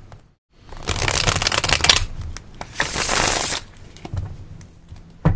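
Tarot deck being riffle-shuffled: two rapid runs of cards flicking off the thumbs, about a second each, followed by quieter rustling and a single sharp knock near the end.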